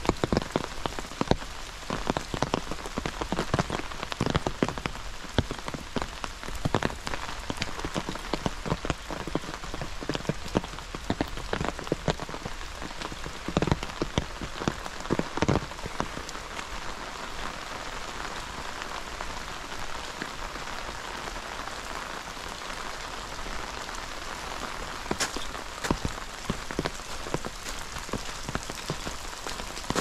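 Steady rain falling, with many sharp close drop ticks over an even hiss; the ticks are busiest in the first half and give way to a smoother, more even hiss later.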